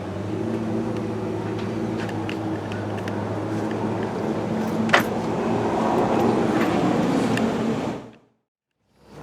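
Komatsu WB93 backhoe loader's diesel engine running steadily, with scattered clicks and clanks and one sharp knock about five seconds in. The sound cuts off abruptly about eight seconds in.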